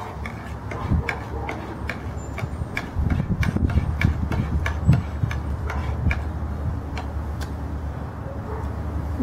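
A spoon stirring coffee in a camp mug, clinking against the side about four times a second; the clinking stops shortly before the end.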